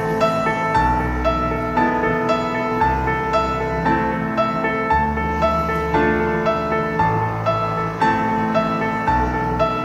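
Background instrumental music led by piano, a steady run of notes struck about twice a second over held bass notes.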